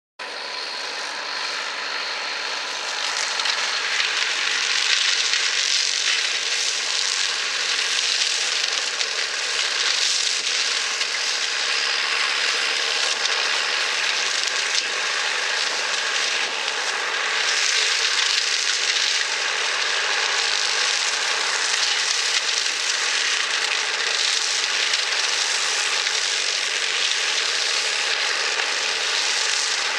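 John Deere 3050 tractor working a reach-arm flail hedge cutter through a hedge: a steady engine drone under load with the dense, crackling hiss of the spinning flail head chopping brush. It builds up over the first few seconds, then holds steady.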